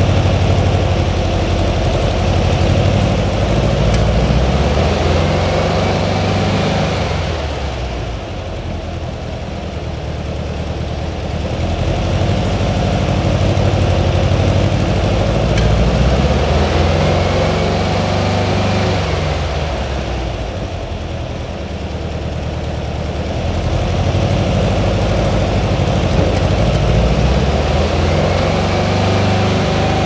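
Air-cooled VW flat-four engine with twin carburettors running through a stainless steel extreme-lowered Bug sport muffler. It runs continuously and eases off twice, about a third and two thirds of the way through, before coming back up.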